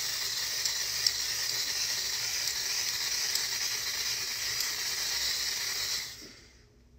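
Aerosol can of face hair-identifier spray hissing in one long continuous spray that stops about six seconds in.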